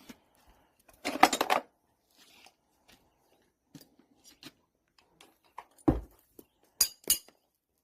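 Farrier's steel tools clinking and rattling during shoe removal, with a dull thump about six seconds in and two sharp ringing metal taps near the end.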